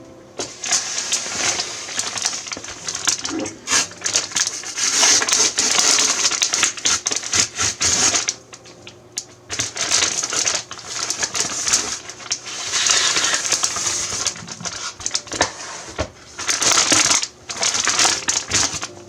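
Packaging being handled up close, crinkling and crackling in long stretches with a few short pauses.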